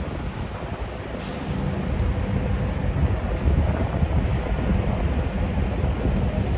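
Semi-truck diesel engines idling in a steady low rumble, with a short air-brake hiss about a second in.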